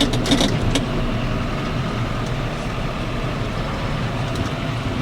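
A vehicle's engine and road noise, heard from inside the cab while driving along: a steady low drone, with a few light rattles in the first second.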